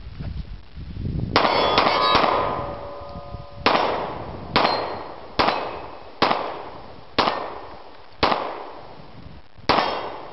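Glock 23 .40 S&W pistol fired about ten times, a quick group of three a little over a second in, then single shots about a second apart. Struck steel targets ring after the opening shots.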